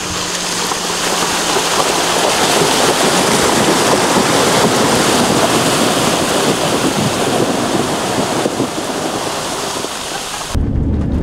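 River water rushing and splashing around a car as it fords a river: a loud, steady rushing that swells and then eases, and cuts off suddenly near the end.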